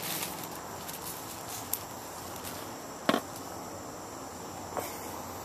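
A steady high insect drone in the background, broken by a few sharp clicks and knocks from plastic tubing and fittings being handled, the loudest about three seconds in.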